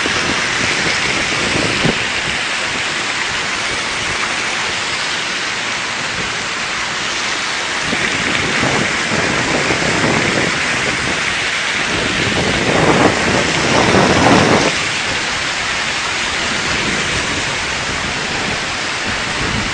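Heavy rain pouring down in a windy storm: a steady hiss that grows louder twice, around eight and thirteen seconds in.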